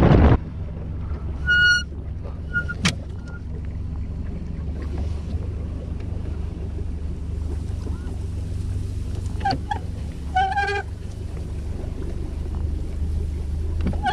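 Boat motor running steadily at low speed, a low even hum. Two short high-pitched calls sound over it, about a second and a half in and again about ten seconds in.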